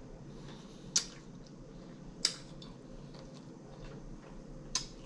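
A metal spoon clinking against a glass salad bowl as the bowl is handled: three short, sharp clinks, about a second in, a little past two seconds, and near the end, over a faint low hum.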